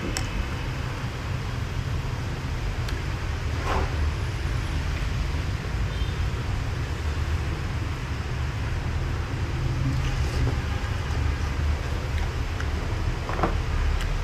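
Steady low background rumble, like traffic or a fan, with two brief eating sounds from a bowl of noodle soup: a slurp or the clink of a spoon, about four seconds in and near the end.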